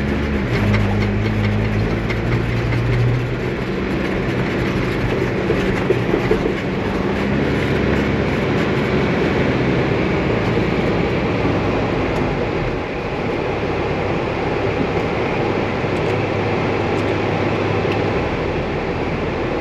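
Toyota LandCruiser 80 Series driving over soft beach sand, heard from inside the cabin: a steady low engine note under a continuous rumble of tyres and bodywork, with a few light rattles.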